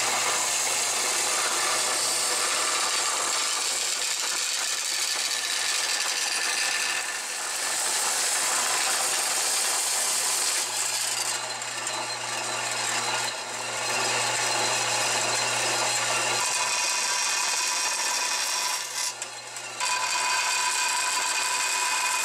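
Vertical metal-cutting bandsaw running and cutting through a metal plate: a steady motor hum under the blade's continuous hiss. The cutting sound changes several times as the plate is fed and turned, and dips briefly near the end.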